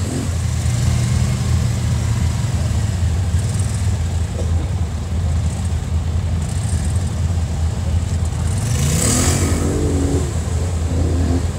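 2017 Polaris Sportsman 850 High Lifter ATV's twin-cylinder engine running under load in mud and water, revving up about eight seconds in with a rush of splashing water.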